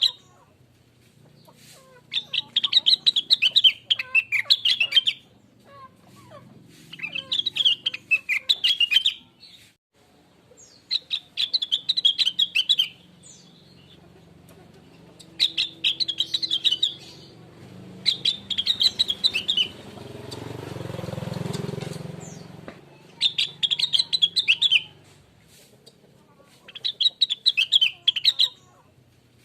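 A blue-winged leafbird (cucak wilis, the 'rengganis' of bird keepers) singing in repeated bursts of fast, high, chattering warbles, each a couple of seconds long with short pauses between. A broad rushing noise swells and fades about two-thirds of the way through, beneath the song.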